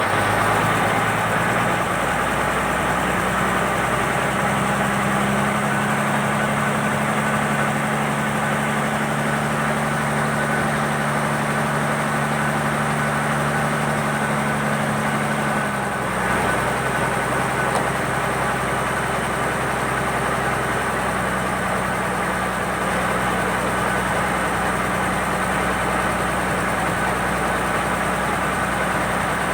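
Purse seine fishing boat's engine running steadily, its note shifting a few times.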